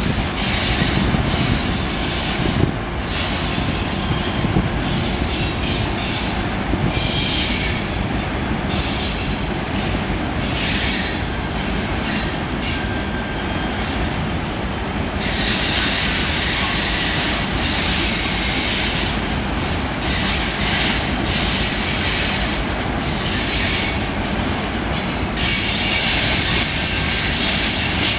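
Freight train tank cars rolling past on curved track: a steady low rumble with high-pitched steel wheel squeal that comes and goes, strongest and most continuous through the second half.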